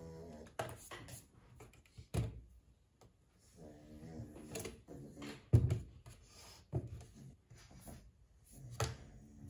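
Objects being handled and set down on a desk: several separate knocks and thumps, the loudest about five and a half seconds in.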